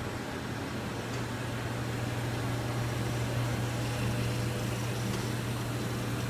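DuPont Cyrel FAST TD 1000 solventless flexo plate developing machine running: a steady low hum over an even rushing noise, a little louder from about a second in.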